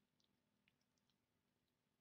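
Near silence, with a few faint clicks of a metal spoon spreading and smoothing a potato mixture in a frying pan.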